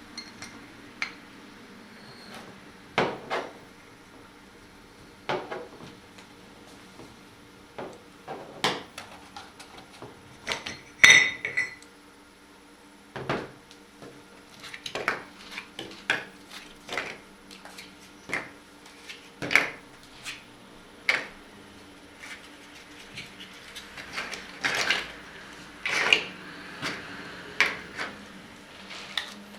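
Irregular metallic clinks and knocks of tools and grinding segments being handled while the segments of a profile grinding wheel are exchanged. The loudest knock, about eleven seconds in, rings briefly.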